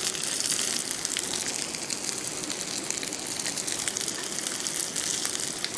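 Slices of steamed pathrode (colocasia-leaf rolls) sizzling in coconut oil on a hot tawa, a steady hiss dotted with many small crackles, as they roast to crispness.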